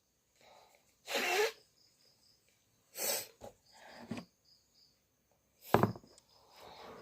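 A person with a cold sneezing and coughing: four short, sudden bursts of breath spaced a second or two apart, the last one near the end the loudest.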